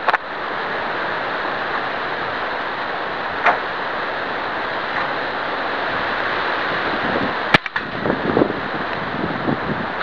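Steady background hiss, broken about three-quarters of the way through by one sharp crack: a Daisy 880 multi-pump pneumatic air rifle firing, followed by a few small clicks.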